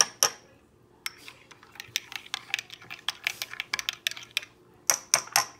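Light clicks and clinks of cups, spoons and dishes being handled, in a quick, irregular run, with a few louder clinks at the start and near the end.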